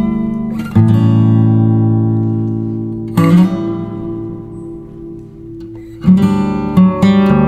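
Background music of a strummed acoustic guitar: single chords struck and left to ring out about every three seconds, then quicker strumming near the end.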